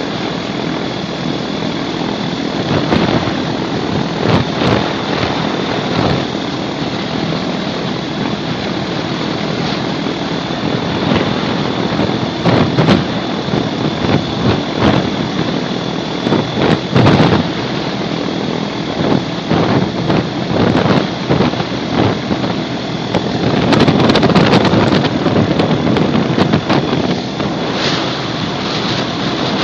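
Gyrocopter in flight: engine and propeller running steadily under heavy wind buffeting on the microphone, with a thin steady whine above them and stronger gusts near the end.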